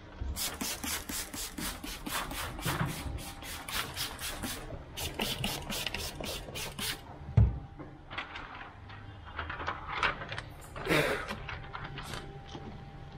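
Quick, even rubbing strokes of a hand tool across car window glass while window film is fitted, about three strokes a second. About seven seconds in there is one dull thump, after which the strokes come more slowly and unevenly.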